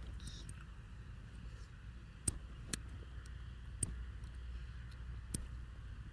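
Barber's scissors snipping, a handful of sharp, separate snips at uneven intervals, over a steady low hum.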